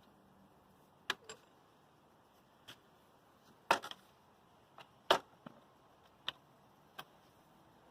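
A series of sharp clicks and knocks at irregular intervals, about ten of them, the loudest a little under four seconds in and again about five seconds in; no motor runs.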